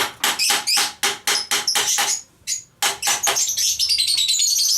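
Hammer blows on the metal of a jet water pump being knocked apart to get at its bearing: a rapid run of sharp metallic strikes, about four or five a second, pausing briefly about two seconds in before a second fast run.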